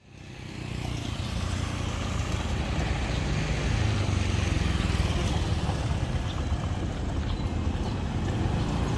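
Engine running steadily with a deep low hum and a haze of mechanical noise above it, fading in over the first second.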